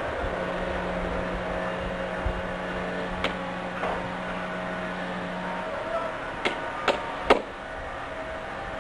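Construction-site machinery running with a steady low hum that drops away about two-thirds of the way through. There are a few sharp knocks, three close together near the end, and the last is the loudest.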